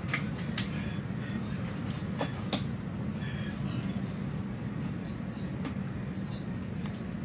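Steady low rumble of a moving regional passenger train heard inside the carriage, with a few sharp clicks and knocks scattered through it.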